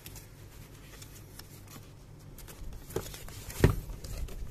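Cardboard camera box being opened by hand: small scrapes and clicks of the end flap and packaging, with a light knock about three seconds in and a sharper, louder knock shortly after.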